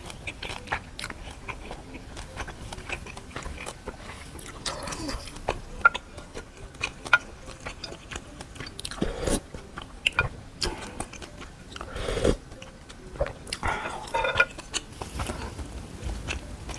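Close-miked chewing and wet mouth clicks of someone eating, with a few louder, noisier sounds about nine, twelve and fourteen seconds in.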